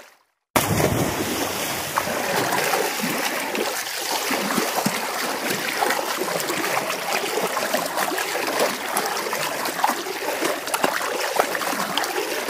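Continuous splashing and rushing water, like a swimmer's strokes, starting suddenly about half a second in after a brief silence.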